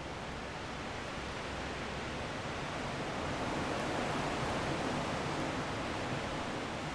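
Strong wind blowing in a steady rush that swells into a stronger gust about three to five seconds in, then eases slightly.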